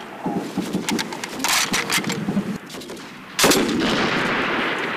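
Metal clicks and clatter as an M249 light machine gun is handled, then about three and a half seconds in a loud burst of machine-gun fire with a long echo trailing off.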